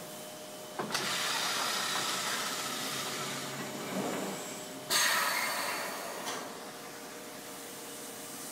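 Mattress-production machinery hissing with air: a hiss starts suddenly about a second in and runs for about four seconds, then a louder, sharper hiss about five seconds in fades away over a second and a half. A steady machine hum with a couple of light knocks runs underneath.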